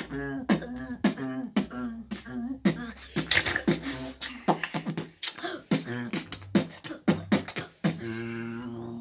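A young boy beatboxing: a fast run of drum-like mouth hits and clicks woven with a wobbling hummed bass line, settling about eight seconds in into one long held hummed note.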